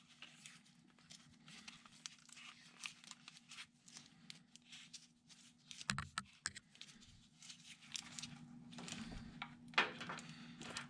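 Plastic split loom rustling and clicking as it is worked by hand onto short wire runs, with a few sharper ticks. A faint steady hum sits underneath.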